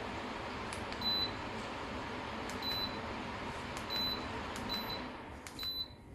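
Midea Sensicool evaporative air cooler's fan running with a steady rush of air while its touch display is tapped, each tap giving a click and a short high beep, five times. Near the end the fan noise dips briefly as the setting changes.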